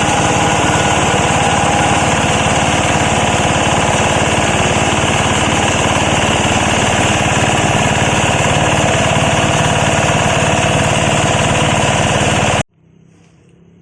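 Foam and scrap-fabric shredding machine running loudly and steadily with a fast, even mechanical rhythm; the sound cuts off suddenly near the end.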